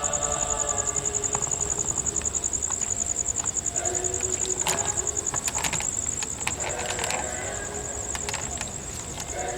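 Insects chirring in a loud, very high, fast steady pulse, with a few fainter held pitched tones and scattered clicks in the middle.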